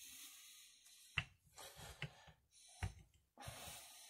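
Wooden rolling pin rolling biscuit dough flat on a floured cutting board: faint rubbing strokes with three light knocks.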